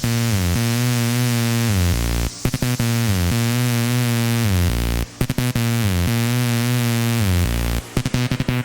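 Drum and bass music from a DJ mix, an instrumental stretch: a heavy synth bass line with a wobbling tone, repeating in phrases about every two and a half seconds, with quick stuttering chopped cuts near the end.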